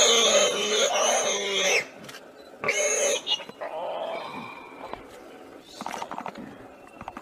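A young wild pig squealing in distress in a leopard's jaws: a loud, high squeal lasting nearly two seconds, a second shorter squeal about three seconds in, then quieter sounds.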